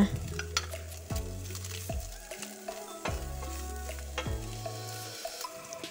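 Stir-fry sizzling in oil in a metal wok while a wooden spatula stirs the anchovies, chillies and fried tempeh, with a handful of short spatula knocks and scrapes.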